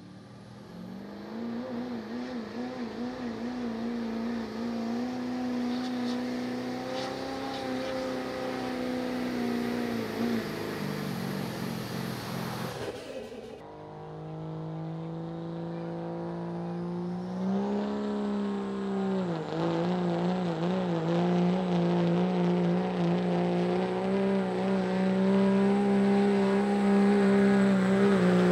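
Competition pulling truck's engine running hard at high revs under load, its pitch wavering. It cuts off abruptly about 13 seconds in. A second truck's engine follows: it revs up, dips, then holds a steady, loud high-rpm pull.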